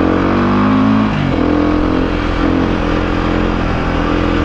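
Dirt bike engine running while riding. Its note drops about a second in, then holds fairly steady.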